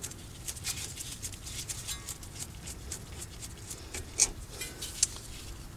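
Light metallic clicks and taps of a loose front brake caliper being handled and shifted on its bracket, with two sharper clicks about four and five seconds in.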